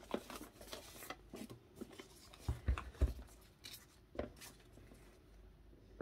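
Light handling of crafting materials: scattered rustles and small clicks, with two soft thumps about halfway through.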